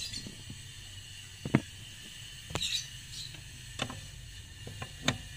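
Combination wrench clicking against the clutch pedal's adjusting nut and bracket as the nut is loosened: four short sharp clicks, the loudest about a second and a half in, over a low steady hum.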